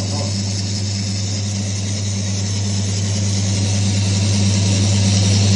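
Electric motor of a Timken-style oil friction tester running steadily: a constant low hum with a hiss over it, slowly getting louder.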